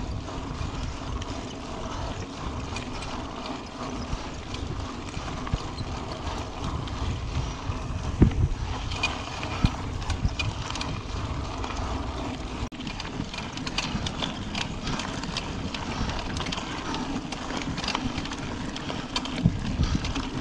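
Mountain bike rolling fast over a dirt and gravel track: tyres crunching, with the frame and components clicking and rattling over the bumps and a harder knock about eight seconds in. Wind buffets the handlebar-mounted microphone.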